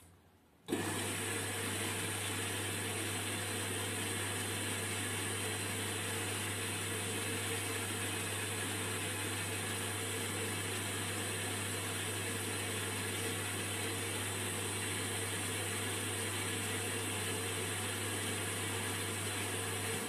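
Indesit IWUC 40851 front-loading washing machine running with a loud, steady hum and rushing noise. It starts abruptly a little under a second in and stops abruptly at the very end.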